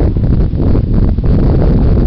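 Wind buffeting the camera's microphone: a loud, low rumble.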